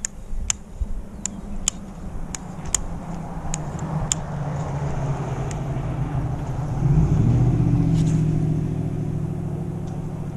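A Ford vehicle driving by on the road, its engine revving hard as it accelerates, building to its loudest about seven seconds in and then fading. A series of sharp clicks comes before it in the first few seconds.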